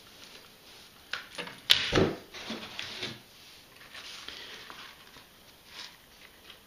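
Unboxing handling noise. A few sharp knocks and clatters come about a second or two in as the plastic search coil is handled at the cardboard box, then there is softer rustling as a soft cover is lifted out.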